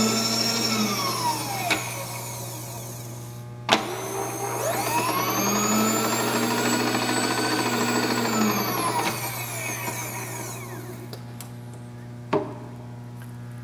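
Servo power feed motor driving a Bridgeport milling machine's table, whining up to speed, holding and winding down twice: the first run ends in the opening second or so, the second runs from about four to nine seconds in. Sharp clicks come between the runs and near the end, over a steady low hum.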